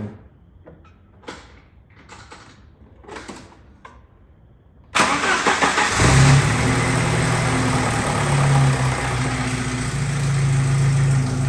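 Jeep YJ engine started for the first time after a fresh oil change: a few faint clicks, then about halfway through a short burst of cranking, and the engine catches and settles into a steady idle.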